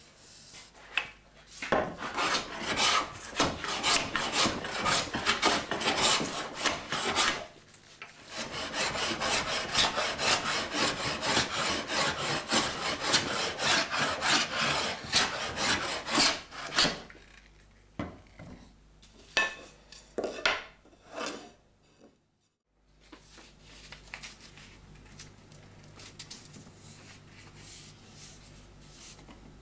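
Bench plane shaving the face of a wooden board in quick, repeated scraping strokes, with a brief pause about seven seconds in. The strokes thin out after about seventeen seconds and stop a few seconds later, leaving a faint low hum.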